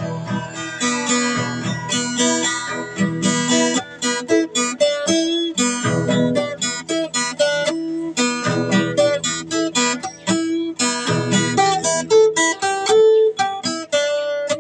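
Acoustic guitar strumming chords, with short breaks between phrases.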